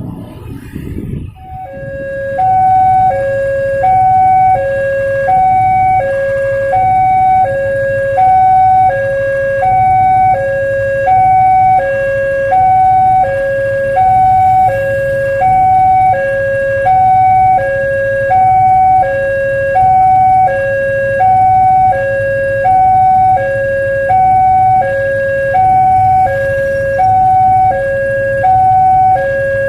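Railway level-crossing warning siren sounding a steady electronic two-tone hi-lo alternation, each note about three-quarters of a second long, starting a second or two in: the warning that a train is approaching. A low steady rumble runs underneath.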